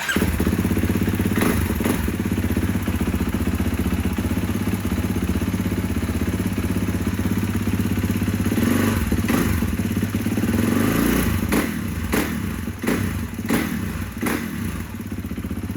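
2019 Kawasaki KX450's single-cylinder four-stroke dirt-bike engine running steadily, then given several quick throttle blips in the last few seconds.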